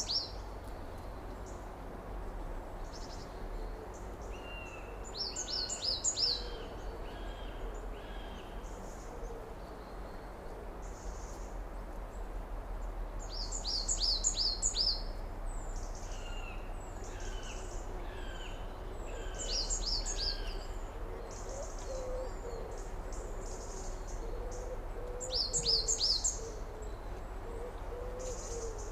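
Summer outdoor ambience of wild birds: a high, rapid trilled song phrase repeats about every six seconds, with softer falling whistled notes between, and a lower wavering call joins in the second half, over a steady low background rumble.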